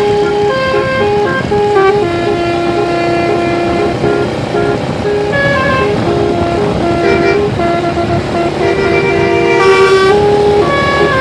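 Basuri telolet multi-tone bus horn playing a tune: loud held notes stepping up and down, often more than one sounding at once, running without a break.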